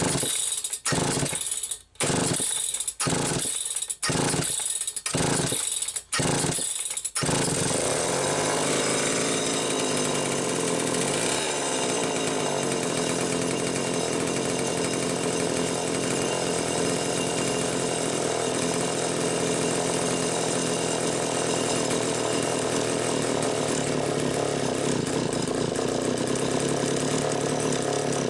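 Homelite 2100S two-stroke chainsaw being started after priming: it fires in short bursts about a second apart, then catches about seven seconds in and runs continuously, its pitch shifting around twelve seconds.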